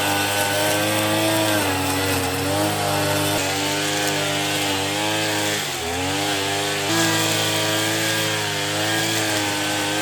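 Small petrol engine running, its speed rising and falling, with a brief dip about six seconds in.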